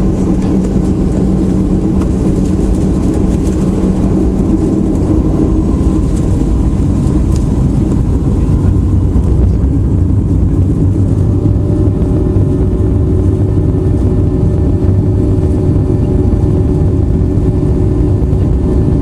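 Boeing 737-800's CFM56 jet engines running: a steady loud rumble with humming tones that shift to a new, lower set of pitches about halfway through, as the engine setting changes.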